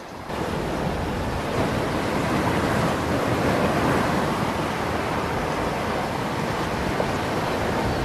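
Strong wind: a steady rushing noise with a low rumble of wind buffeting the microphone. It gets louder just after the start.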